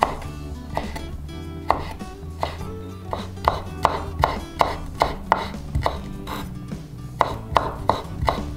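Kitchen knife slicing yuzu peel into thin strips on a wooden cutting board: sharp knocks of the blade on the board, a few spaced ones at first, then a quicker run of about three a second.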